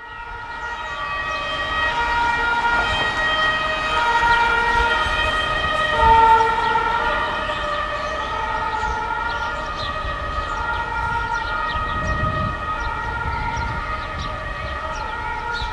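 Air horns of a BR232 diesel locomotive blown in a long series, switching back and forth between tones, over the low rumble of the locomotive.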